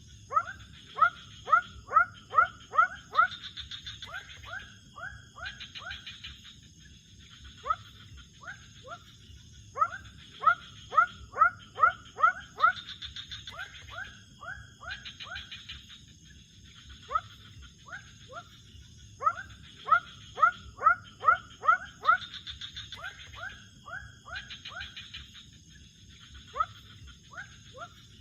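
Animal calls: bouts of short, downward-sweeping chirps, about three a second, that recur roughly every nine seconds and alternate with a buzzing trill, over a steady thin high whine.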